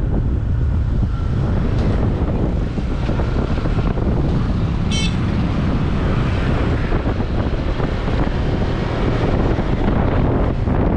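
Steady wind rumble on the microphone over street traffic noise, with a brief high-pitched squeak about five seconds in.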